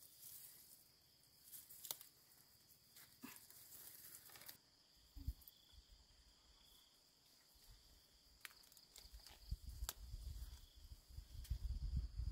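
Faint, steady high-pitched insect chirring, with scattered light rustles and clicks; a low rumbling builds in the last few seconds.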